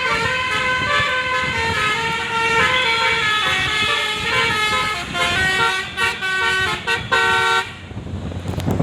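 A bus's telolet horn playing a sholawat melody, a tune of stepped horn notes that stops about seven and a half seconds in.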